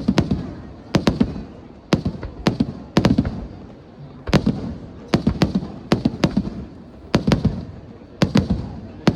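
Aerial fireworks bursting in rapid clusters, sharp cracks and bangs coming about once a second, each burst trailing off in a low rumble.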